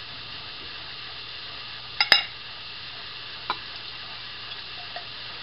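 A few sharp clicks and clinks as an opened metal can of diced tomatoes is handled and tipped over a ceramic bowl, the loudest pair about two seconds in and a smaller one a second and a half later, over a soft steady hiss.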